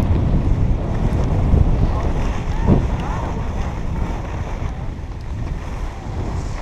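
Wind rumbling on an action camera's microphone while riding over snow, easing off as the rider slows.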